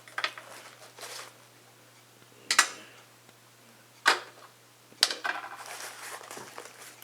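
Small metal hand tools clinking and knocking as they are handled and taken out of a tool pouch: several sharp knocks with rattling and rustling in between.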